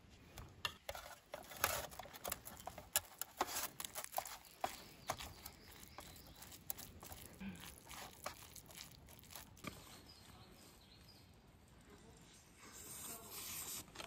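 Metal spoon scraping and clicking against a small aluminium pot while mixing rice and yeolmu kimchi, many quick scrapes and taps for about the first ten seconds, then dying down.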